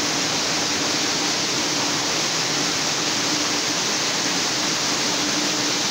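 Steady rushing background noise with a faint steady hum underneath, unbroken throughout.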